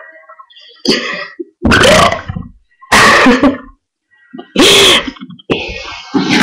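A person burping loudly over and over: a short burp about a second in, then longer burps roughly every second and a half, the last running on past the end.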